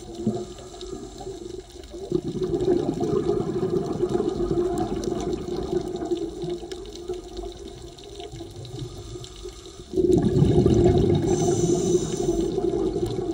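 Underwater rush of a scuba diver's exhaled bubbles from the regulator, swelling and fading with each breath, and surging loudly again about ten seconds in.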